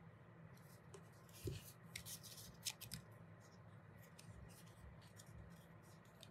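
Faint rustling of thin paper petals handled and pressed together as they are glued, busiest in the first half, with a soft tap about one and a half seconds in.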